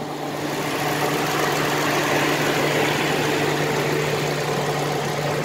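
A 2015 Ford F-250's 6.2-litre gas V8 idling steadily with the hood open, a constant low hum under an even whir. It sounds in order.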